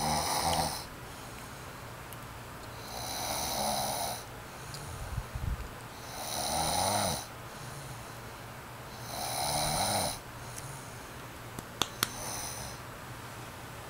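A sleeping man snoring, four loud snores about three seconds apart, each lasting about a second. Two sharp clicks come near the end.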